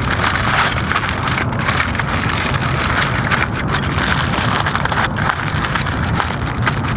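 Aluminium foil crinkling as it is folded and crimped by hand around a salmon fillet, with a few sharp crackles, over a steady low rumble.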